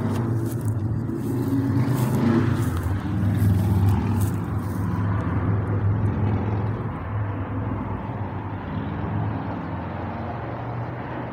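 A car engine running nearby with a steady low hum that grows louder a couple of seconds in and then slowly fades away.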